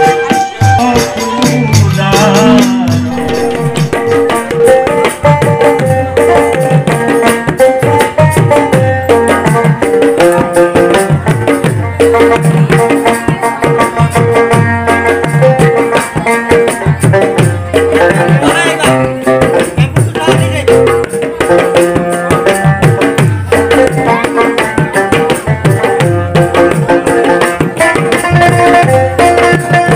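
Loud Indian folk-style music with fast hand-drum strokes and shaken rattle-like percussion over held melody notes, keeping a steady dance rhythm.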